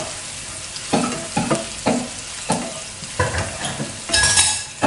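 Onion and garlic sizzling in hot oil in a non-stick wok while a spatula stirs them. A steady sizzle runs under scraping strokes against the pan about twice a second, with the longest and loudest scrape near the end.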